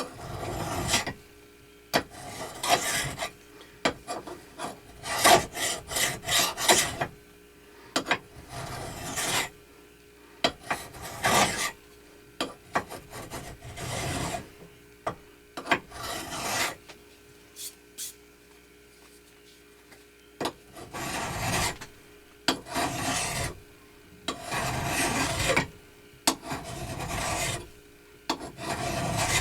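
Hand file rasping across a metal part of a belt grinder in irregular strokes, each about a second long. The file's safe edge rides against a neighbouring surface so only one face cuts. The strokes stop for a few seconds in the middle, then start again.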